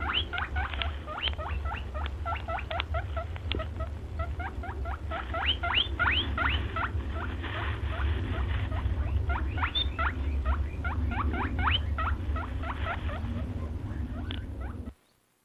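Rapid, high squeaky chirps, several a second, each dropping sharply in pitch, over a steady low wind rumble; the chirping thins out for a couple of seconds mid-way and everything cuts off abruptly near the end.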